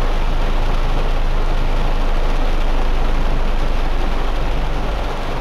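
Heavy rain drumming on a car's windshield and roof, heard from inside the cabin, as a steady hiss with a low rumble of the vehicle underneath.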